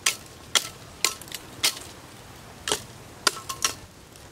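A long knife chopping dry branches: about eight sharp cracks, roughly every half second at first, then a pause and a quick cluster near the end.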